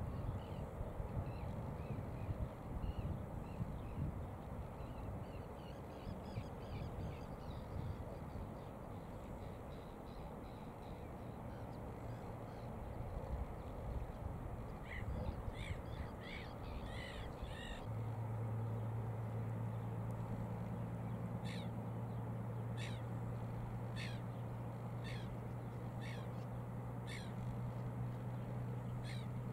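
A bird calling in a series of short calls: a quick cluster about halfway in, then roughly one call a second to the end. Under it are a low rumble and a steady low hum that comes in partway through.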